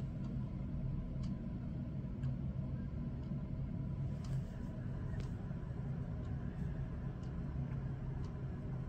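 Steady low background rumble with a few faint, scattered clicks.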